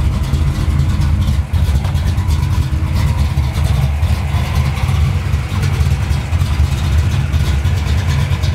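1995 Mustang SVT Cobra R race car's V8 engine running steadily at idle, loud, with a deep pulsing note.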